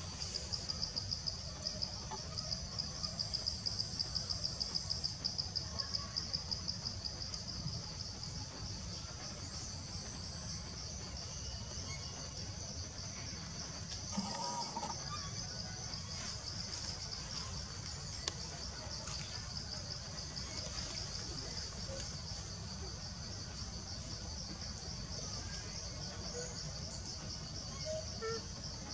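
Insects chirring in a steady high-pitched chorus, pulsing about three to four times a second and loudest in the first several seconds, over a low steady rumble.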